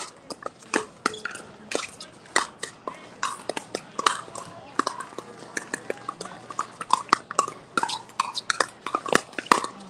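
Pickleball paddles striking the ball: many sharp, irregular pops, several a second, overlapping as from more than one rally.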